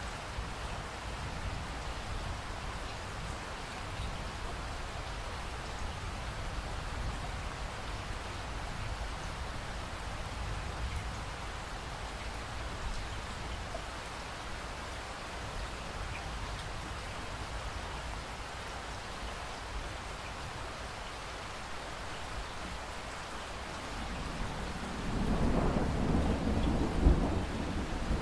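Steady rain falling. About 25 seconds in, a roll of thunder begins: a deep rumble that swells, with a sharper crack near the end.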